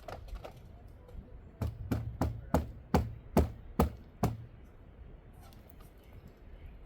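Hammer blows: about eight sharp strikes in quick succession, roughly two a second, over a couple of seconds near the middle.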